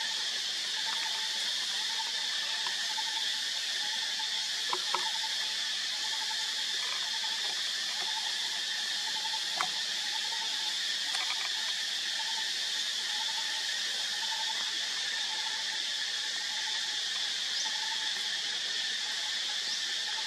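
Steady high-pitched insect chorus, with a short faint note repeating about twice a second and a few soft clicks about five and ten seconds in.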